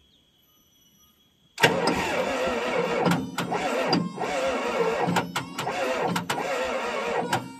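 Excavator diesel engine, unused for five years, cranked on its starter: it kicks in suddenly about a second and a half in and turns over for about six seconds with irregular sharp knocks, then stops.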